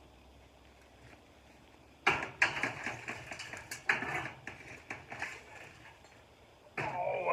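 Close scraping and rustling of soil and potato vines being dug through by hand in a raised garden bed. It starts abruptly about two seconds in as a run of sharp scrapes, then eases off. A brief wavering tone comes near the end.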